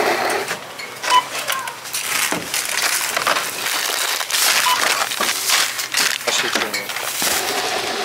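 Checkout barcode scanner beeping twice, about a second in and again past halfway, over steady crackling of plastic bags and packaging as groceries are handled on the belt; faint voices in the background.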